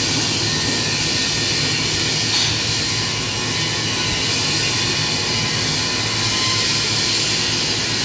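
Steady, loud machinery noise in a metal fabrication shop: an unbroken drone and hiss with no distinct strikes.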